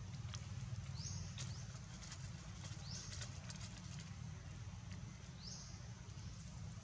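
Outdoor ambience: a steady low rumble, with a short high rising chirp three times, about two seconds apart, and a few faint clicks.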